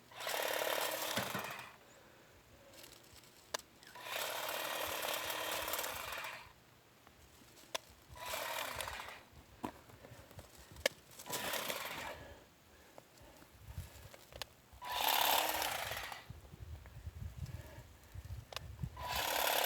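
Powered hedge trimmer running in short bursts of one to two seconds, six times, cutting lavender stems at harvest, with quieter pauses between the cuts.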